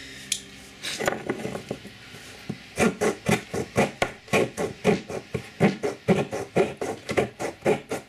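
Leatherman Charge TTi multitool's folding saw blade cutting a small wooden block, with quick back-and-forth strokes that settle into an even rhythm about three seconds in.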